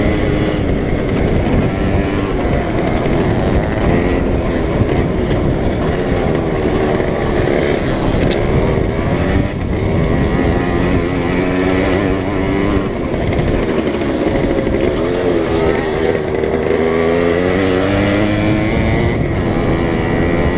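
Small racing moped engine running hard, its pitch rising and falling again and again with the throttle, over a steady rush of noise.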